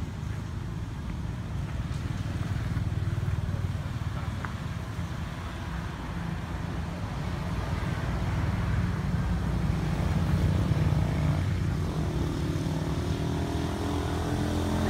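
Low, steady rumble of motor vehicle engines running. From about twelve seconds in, a second engine's hum grows louder.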